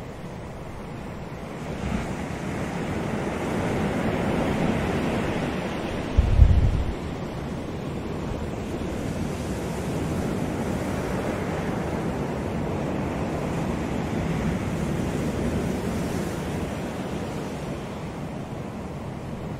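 Ocean waves breaking and washing over rocks along the shore, swelling and easing, with wind on the microphone. A brief low thump about six seconds in is the loudest moment.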